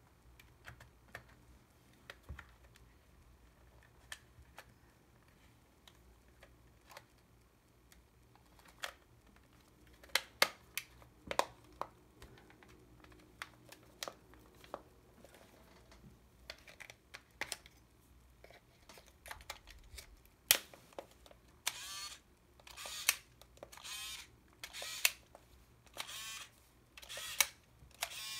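Small plastic clicks and snaps of a Yashica T4 compact film camera being handled. Then, about three-quarters of the way through, the camera's lens motor whirs in short bursts about once a second as the camera is switched on and off over and over, a test of the cleaned and re-bent power-switch brush contacts.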